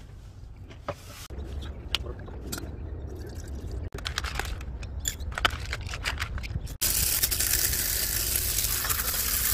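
Coffee beans clicking into a small electric coffee grinder, then the grinder running with a loud, steady whir from about seven seconds in.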